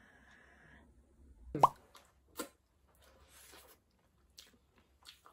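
A single short pop with a quickly rising pitch, the loudest sound, followed by faint clicks and smacks of chewing a bite of cream-filled doughnut.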